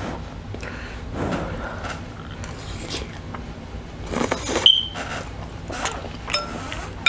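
Noodles being slurped and eaten close to the microphone, with a louder slurp about four seconds in that ends in a short high squeak, then a few sharp clicks of a metal fork against a glass bowl near the end.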